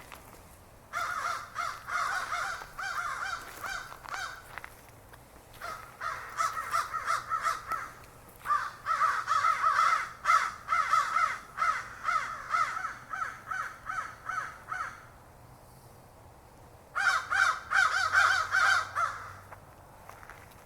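Crows cawing in quick runs of repeated calls, in four bouts separated by short pauses.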